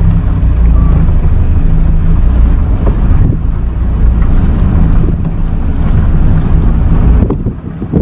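Morris 8 Series 1's side-valve four-cylinder engine running, heard from inside the cabin as a steady low rumble that dips briefly near the end.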